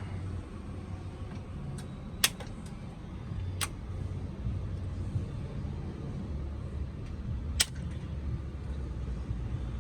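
A steady low rumble, like road traffic, with three sharp clicks: the loudest about two seconds in, one near four seconds and one late.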